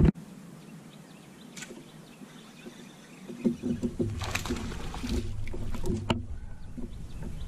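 Outdoor sound on an aluminium jon boat while a fish is fought on rod and reel. It is quiet at first, then a low rumble comes in about halfway, with a few short knocks.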